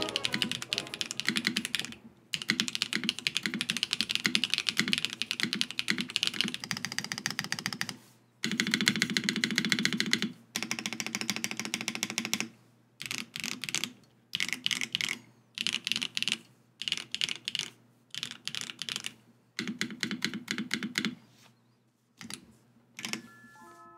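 Typing on a Neo80 custom mechanical keyboard with HMX Canglan V2 linear switches, a POM plate and Monokei Series 1 keycaps. The keystrokes come as fast, dense runs of clacks, and after about 12 seconds the runs turn into shorter bursts broken by brief pauses.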